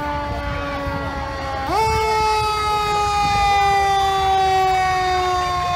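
Fire engine siren wailing: its pitch sinks slowly, swoops sharply back up a little under two seconds in, then sinks slowly again.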